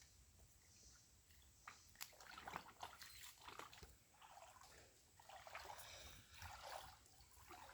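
Faint sloshing and trickling of shallow creek water, rising in two soft swells with a few small clicks.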